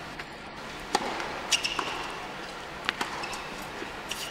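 Tennis ball being struck by rackets and bouncing on an indoor hard court: a string of sharp pops about a second apart over the hush of a quiet arena crowd.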